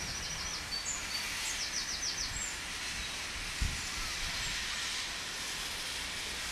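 Steam locomotive No. 12 Hutchinson, a Beyer Peacock 2-4-0 tank engine, giving a steady hiss of steam escaping around its cylinders. A single low thump comes about three and a half seconds in.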